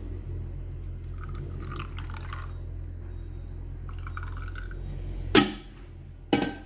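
Fresh parsnip juice poured into glasses in two short trickles, then two sharp hard knocks near the end.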